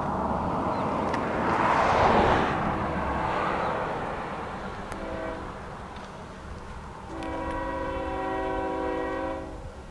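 Diesel locomotive air horn of an approaching Union Pacific freight, sounded from out of sight: a short blast about five seconds in, then a long blast of about two and a half seconds, several tones sounding together as a chord. Before the horn, a swell of rushing noise peaks about two seconds in.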